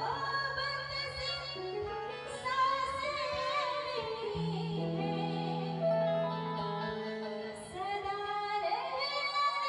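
A woman singing with instrumental accompaniment at a stage show, holding long, wavering notes.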